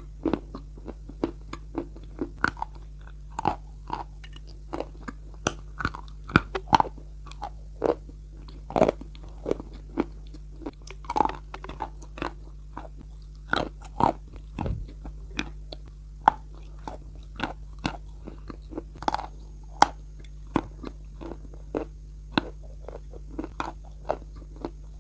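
Bogorodsky chalk being bitten and chewed close to the microphone: sharp, irregular crunches, several every few seconds, over a faint steady low hum.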